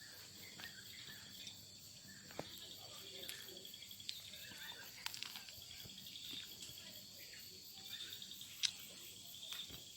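Faint, steady high-pitched chirring of insects such as crickets, with a few soft clicks scattered through it.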